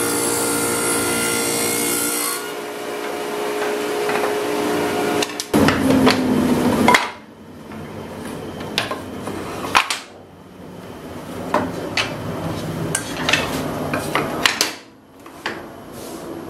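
Table saw running, switched off about two seconds in. Then the cut wooden strips are handled and set down on the saw's steel table in a run of irregular knocks and clatters.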